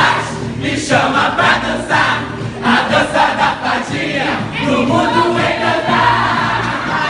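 Loud dance music with a steady beat about once a second and a group of voices singing along.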